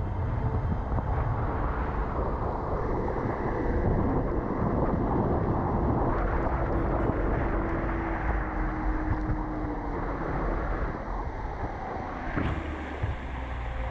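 Fishing boat running at speed: a steady motor drone under the rush of water from the wake and wind buffeting the microphone.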